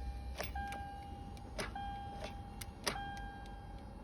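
Warning chime of a 2014 Toyota 4Runner sounding as a steady beep in stretches of about a second, repeating about every second and a bit. Sharp clicks fall between the beeps. The engine does not crank: the no-start fault in which turning the key only gives a click.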